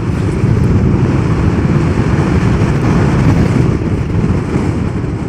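Wind on the microphone and tyre noise from a Zero DSR electric motorcycle on the move: a steady low rumble.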